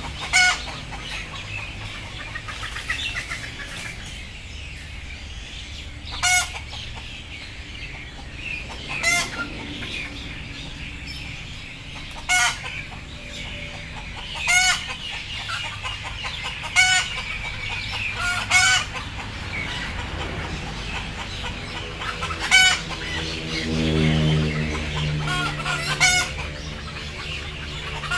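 Chickens giving short, loud clucking calls, one every two to three seconds, over a steady low background. A lower drawn-out note sounds for about two seconds a little before the end.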